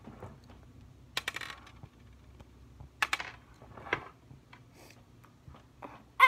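Small hard objects clicking and clinking, in three short clusters about one, three and four seconds in, over a faint low room hum.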